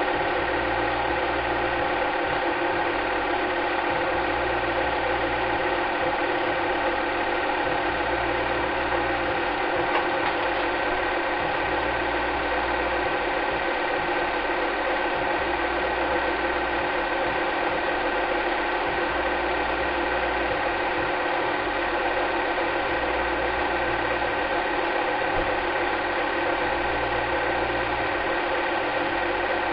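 Steady mechanical whirring of a cine film projector's motor and film transport, with a low pulse that comes and goes every second or two.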